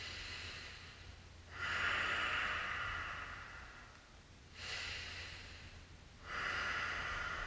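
A man breathing slowly and deeply, audible long hissing breaths in and out through the nose and throat, about four in a row, as in yoga breathing during a held stretch.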